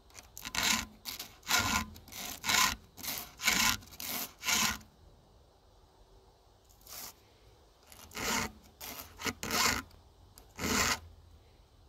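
Round chainsaw file rasping across a saw chain's cutter teeth in short push strokes, about nine quick strokes, then a pause and a few more strokes near the end: a chain being sharpened by hand, tooth by tooth.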